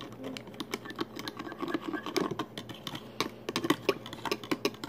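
Metal fork stirring powdered drink mix into water in a plastic cup: rapid, irregular clicks and taps of the fork against the cup's sides.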